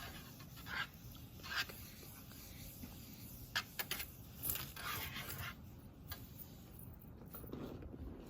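Quiet room ambience with scattered short rustles, scrapes and clicks, as of someone handling papers and study things at a desk.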